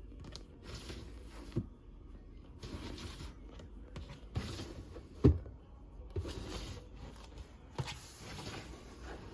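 Household handling noises: repeated rustling bursts about once a second, with several soft thumps, the loudest about five seconds in.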